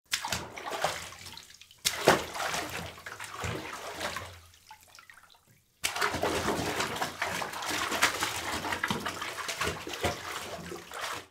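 Water running and splashing, like a bathtub being filled, in two stretches: the first with a sharp splash about two seconds in, fading away about five seconds in, and the second starting suddenly about six seconds in and running steadily.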